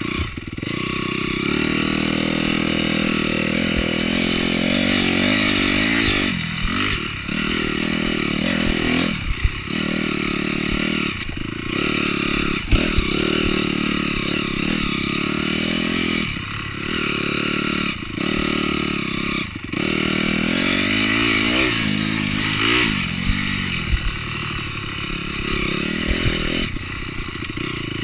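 Honda CRF250R motocross bike's four-stroke single-cylinder engine running hard, the throttle shut off briefly again and again and the revs sweeping back up each time. Occasional sharp knocks from the bike over the rough track.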